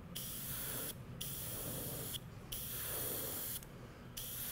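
Airbrush spraying paint onto a lure in short bursts of about a second each, with brief gaps between: four bursts, the last starting near the end.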